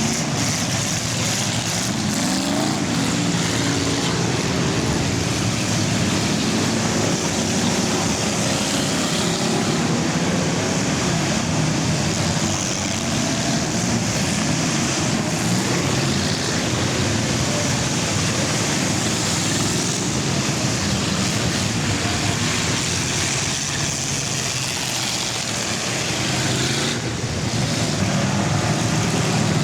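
A field of full-size cars racing in an enduro, many engines running at once in a steady, dense din.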